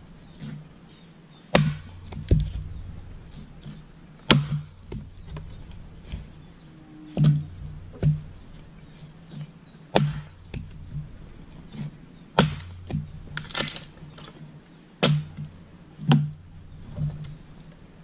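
Firewood being split by hand with a heavy chopping blade: sharp strikes into a log, about ten in all, coming irregularly one to three seconds apart, with lighter knocks between.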